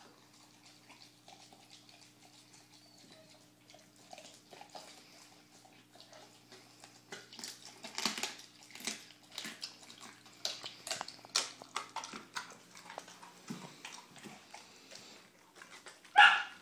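An American Staffordshire Terrier chewing a whole raw chicken: quiet mouthing at first, then irregular sharp crunches and wet chewing from about seven seconds in, over a faint steady hum. Near the end a brief loud voice cuts in.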